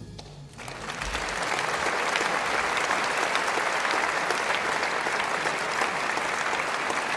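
Audience applauding at the end of a jazz piano trio's piece; the clapping swells in about half a second in, as the last chord dies away, and then holds steady.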